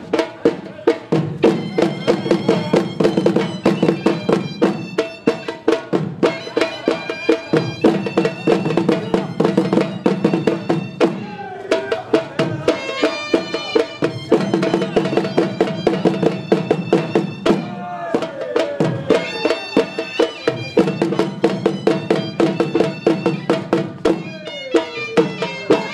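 Khattak dance music: a dhol drum beating a fast, steady rhythm under a shrill double-reed pipe, the surnai, playing a held, wavering melody. The drumming drops out briefly twice, about a third and two thirds of the way through, while the pipe slides in pitch.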